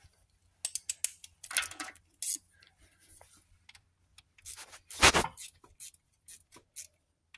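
Light metallic clicks and scrapes of a screwdriver and engine parts being handled at the timing end of an engine, with rustling and one louder bump about five seconds in.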